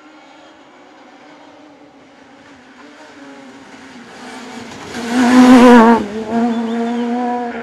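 Suzuki rally car's engine held at high revs as it approaches, getting steadily louder, then passing close by about five seconds in with the revs wavering, before carrying on with a steady note as it moves away.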